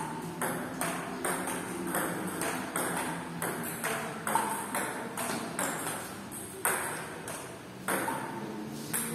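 Table tennis rally: the celluloid-type ball clicking off bats and the table in a quick, uneven run of sharp taps, about two a second.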